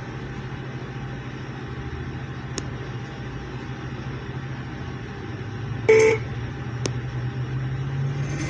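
Steady low hum of a running car engine, with a brief horn-like toot about six seconds in and a couple of faint clicks.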